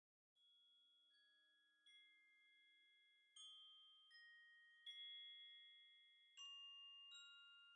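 Faint background music: a slow melody of single bell-like mallet notes, each left ringing, growing louder as it fades in.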